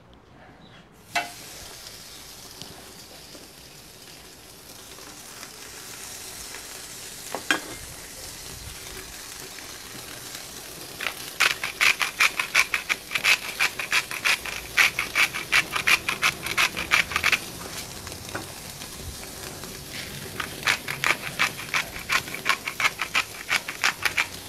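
Wagyu steaks sizzling on a hot Weber grill plate at about 250 degrees, with a single knock about a second in. About halfway through and again near the end, a hand spice mill grinds over them in long runs of rapid clicks.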